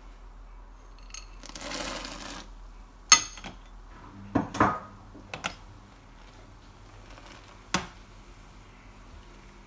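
A brief rustle, then several sharp metallic clinks and knocks as a long stainless steel spoon strikes the sides of the stainless brewing kettle while stirring hops into the wort. The loudest clink comes about three seconds in, with two close pairs following and a last knock near the end.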